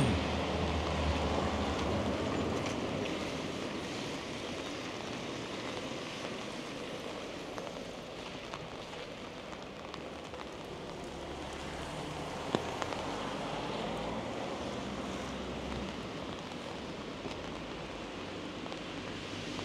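Steady rain falling, an even hiss with a low rumble underneath; a single sharp tap about twelve seconds in.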